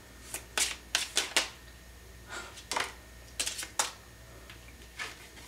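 Tarot deck being shuffled and handled: an irregular run of sharp card snaps and taps, some coming in quick clusters, as a card is pulled out of the deck.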